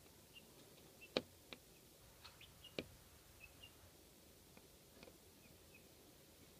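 Young chickens close to the microphone: a few sharp taps, the loudest about a second in, as a chicken pecks at and around the camera. Faint short high peeps come now and then.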